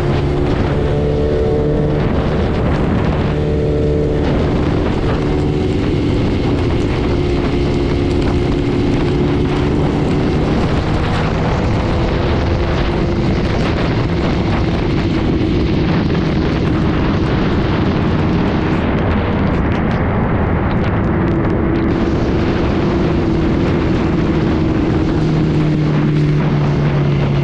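A superbike's engine runs at a fairly steady cruising speed, its note shifting slightly now and then, under a heavy, continuous rush of wind and rain noise on the camera microphone.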